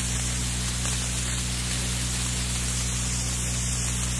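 Steady hiss with a low, even hum underneath: the background noise of an old lecture recording during a pause in the talk.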